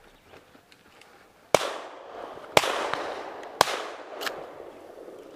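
Three close shotgun shots about a second apart, each followed by a long echoing tail, then a fainter fourth shot just after.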